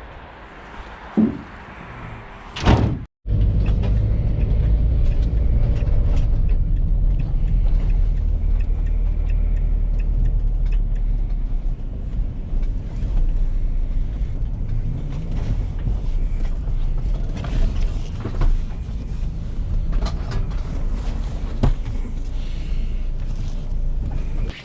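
Van engine and road noise on the move: a steady low rumble, after a sharp knock and a brief cut about three seconds in.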